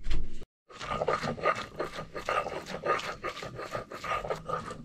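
Boiled stinging nettle (kandali) greens being rubbed and mashed by hand on a board, a rasping stroke about four times a second, starting after a brief break.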